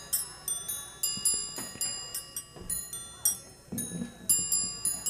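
Music: a tinkling melody of high, bell-like struck notes, two or three a second, each one ringing on.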